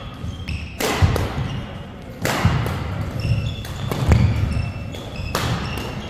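Badminton doubles rally on an indoor court: rackets strike the shuttlecock with sharp smacks three times, amid sneaker squeaks and footfalls on the court floor.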